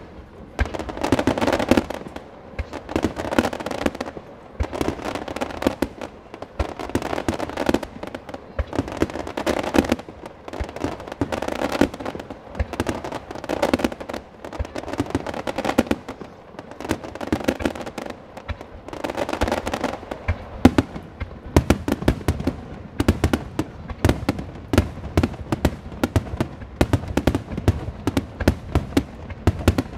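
Starmine fireworks barrage: shells launching and bursting in rapid succession, heard as many sharp bangs and booms that come thicker and faster in the second half.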